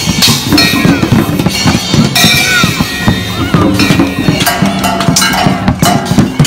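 Music with a busy drum beat and a held bass line.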